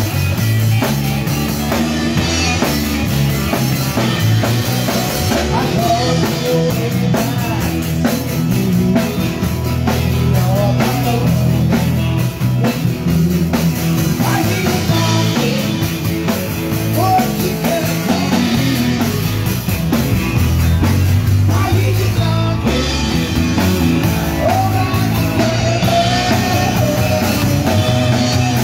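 Live rock band playing: drum kit with electric and acoustic guitars.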